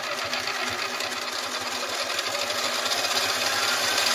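Small metal lathe running and speeding up, a steady mechanical whirr that grows gradually louder with a faint rising whine near the end. Its spindle is spinning a NEMA 23 stepper motor that is being used as a generator.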